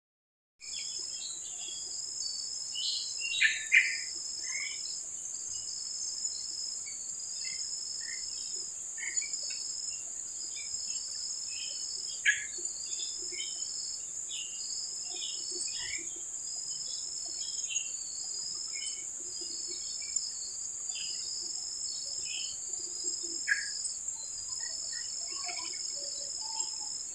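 Insects shrilling steadily at two high pitches, with a pulsing high call repeating about once a second, and scattered short bird chirps over it.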